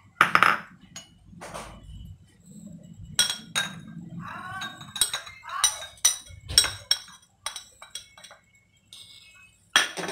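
A cut-glass plate and a metal spoon clinking against a white bowl as ground spices are tipped and scraped off the plate into the bowl: a run of sharp clinks and taps, the loudest right at the start.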